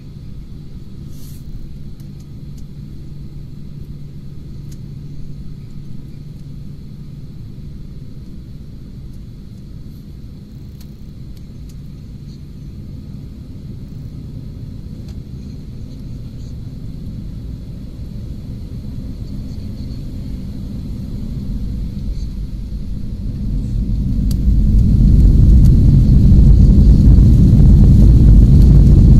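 Jet airliner engines heard from inside the cabin: a steady low rumble while taxiing that slowly builds, then surges sharply louder near the end as the engines spool up to takeoff thrust.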